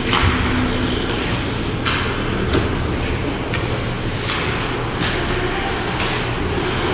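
Ice hockey play heard at ice level: skate blades scraping and carving on the ice, with several sudden sharp scrapes and clacks of sticks and puck spaced through the play, over a steady low hum of the rink.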